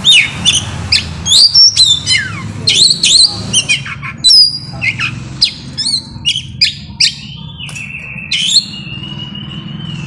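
Oriental magpie-robin (kacer) singing hard: a rapid, varied string of loud whistles, sweeping notes and harsh calls, with one long held whistle near the end. A steady low hum sits underneath.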